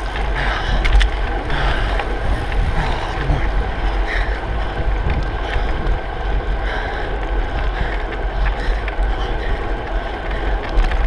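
Wind buffeting the microphone of a handlebar-mounted camera on a moving bicycle: a steady, heavy low rumble.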